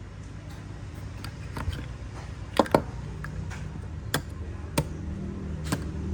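Several sharp clicks and knocks from Zippo lighters and their boxes being handled, the loudest a quick pair about two and a half seconds in, over a low steady hum.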